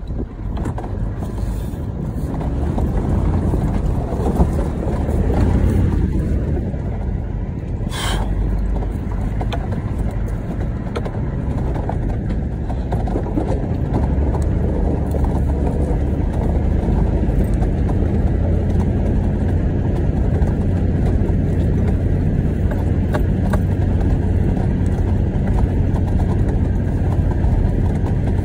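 Toyota Land Cruiser 78 series Troopy driving slowly over a rough, rocky track, heard from inside the cabin: a steady low engine drone with the rumble of the tyres on stones. One sharp knock about eight seconds in.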